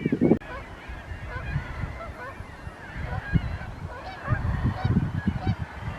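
A flock of Canada geese honking, many short calls overlapping, with a few low thumps partway through.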